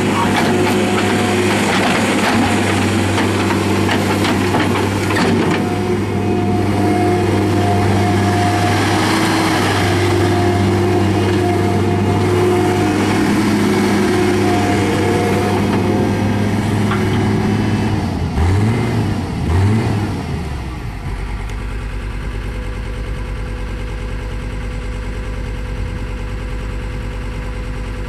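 John Deere 325 skid steer's turbo diesel engine running steadily at high revs, its pitch dipping twice briefly before it falls back to a steady idle about three-quarters of the way through.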